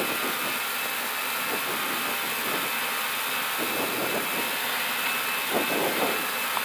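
Airbus A320 flight deck during the takeoff roll at takeoff thrust: steady engine and airflow noise, with an uneven rumble and knocking of the wheels running along the runway.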